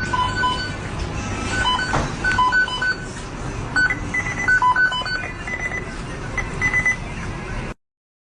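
Short electronic beeps, some in quick pairs, sounding in an irregular pattern over a steady low rumbling noise. Everything cuts off abruptly near the end.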